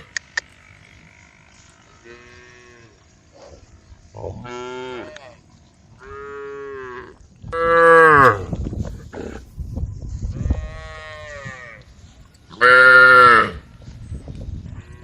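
Cows mooing to one another, about six drawn-out calls in turn, some faint and some close. The two loudest come about halfway through and near the end.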